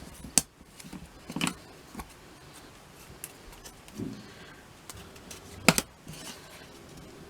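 Washi tape being handled on a craft table: short crackly rasps of tape pulled off the roll and torn, with a few sharp clicks, the loudest about halfway through.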